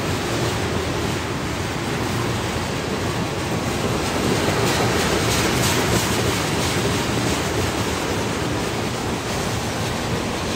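Freight cars of a long mixed freight train rolling past on steel wheels: a steady rumble and rush of wheels on rail, a little louder for a couple of seconds around the middle.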